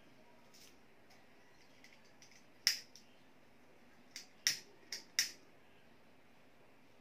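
Thin Japanese kite paper crackling in a few sharp clicks as fingers fold and press it along the kite's bamboo frame: one click about a third of the way in, then a quick run of four a couple of seconds later.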